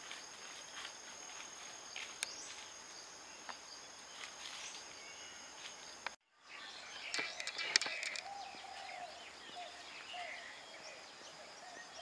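Morning outdoor ambience of birds chirping and calling over a steady high insect drone. The sound cuts out briefly about halfway, after which the bird calls are busier, with a repeated lower whistled call.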